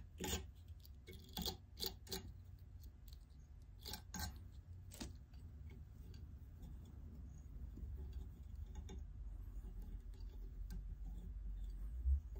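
A small brush drawn in quick scratchy strokes through the synthetic fibers of a fly-tying body brush on a fly clamped in a vise, about eight strokes in the first five seconds, then only a few faint ticks over a low steady hum.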